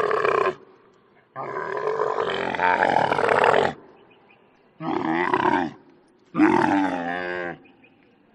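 Camel calling: four loud, throaty calls with a wavering pitch. The second lasts about two and a half seconds, and the others under a second and a half, with short silences between them.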